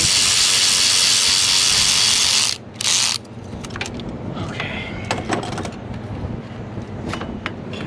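Power ratchet running in a burst of about two and a half seconds, then a short second burst, loosening a fastener on the turbo charge tube of a Ford 6.0 diesel. After that come light clicks and knocks of handling the parts.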